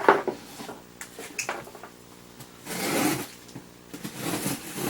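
Cardboard toy box being handled: a knock, then two rubbing, sliding sounds about three and four and a half seconds in.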